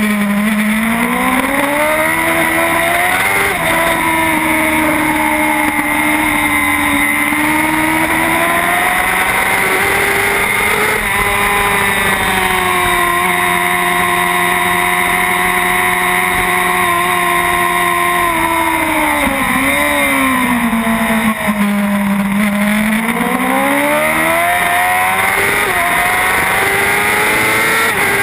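Racing motorcycle engine at high revs, heard from an onboard camera, over a constant rush of wind. Its pitch climbs in steps through the gears, holds steady for several seconds through a long corner, drops sharply about two-thirds of the way through as the bike slows, then climbs through the gears again.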